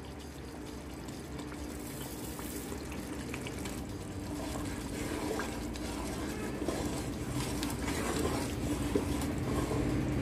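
Arvi curry bubbling in an aluminium pot while a metal slotted spoon stirs through it, with small clinks of the spoon in the second half. The sound grows louder toward the end.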